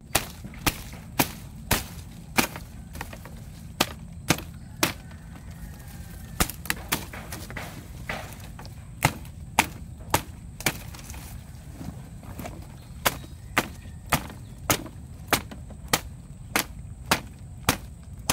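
A blade chopping through woody shrub stems at their base: a run of sharp chops about two a second, with a short pause around the middle.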